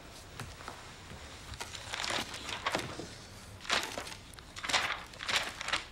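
Pages of a large dictionary rustling as they are turned quickly, several brisk page flips one after another, the loudest in the second half.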